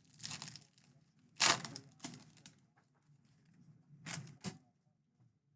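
A trading card pack's wrapper being torn open and crinkled in a few short, rustling bursts, the loudest about a second and a half in.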